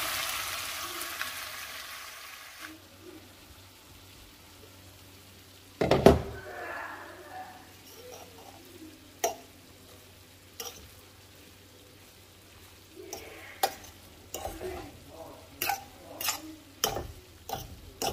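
Beef and onions sizzling in a pan, fading out over the first couple of seconds. A single loud knock comes about six seconds in. Near the end, a fork clinks and scrapes against a stainless steel pan in a series of sharp clicks as cooked rice is fluffed.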